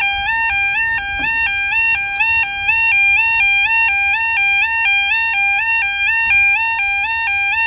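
Level crossing audible warning: an electronic two-tone sounder alternating rapidly between a lower and a higher pitch, warning that the barriers are moving.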